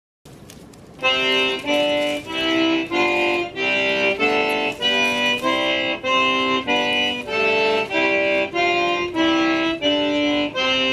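Instrumental music: a tune of held chords that change about twice a second, starting about a second in.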